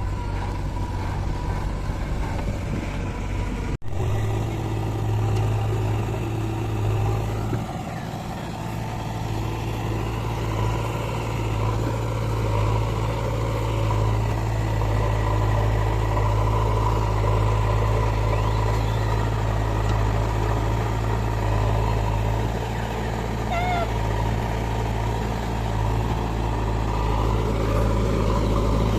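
Heavy diesel engine of earth-moving machinery running steadily, a low drone, with a momentary dropout about four seconds in.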